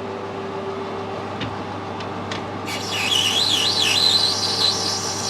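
Metal lathe running steadily, then a tool cutting a chamfer on a spinning brass union. About halfway in, the cut gives a loud, high squeal that wavers up and down in pitch for the rest of the clip.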